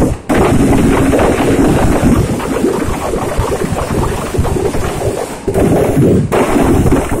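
Firecrackers packed inside burning Dussehra effigies going off in a loud, dense, continuous crackle of rapid pops, with a short lull just after the start.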